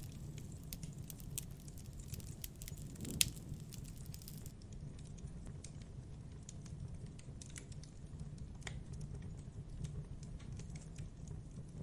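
Wood fire crackling, with irregular snaps and pops and one louder pop about three seconds in.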